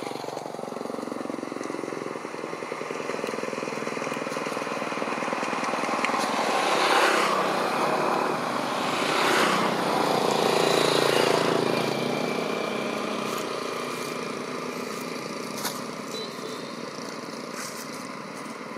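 Engine noise of motor vehicles, swelling as they pass about seven seconds in and again around ten seconds in, then fading.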